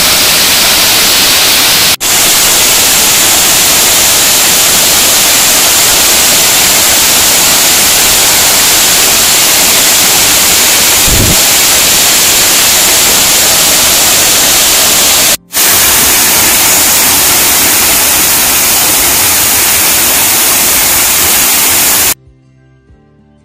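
Loud, steady rushing roar of a waterfall close by, broken by two short dropouts, about two and fifteen seconds in. Near the end it cuts off suddenly and soft music starts.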